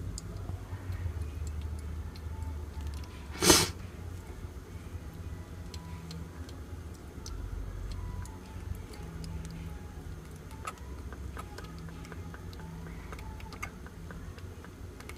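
A young kitten suckling milk from a nursing bottle, making small irregular clicking and smacking sounds at the nipple. About three and a half seconds in there is one short, loud noise.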